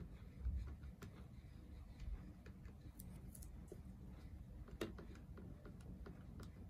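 Faint, scattered clicks of buttons being pressed on a Canon scientific calculator, the strongest a little under five seconds in.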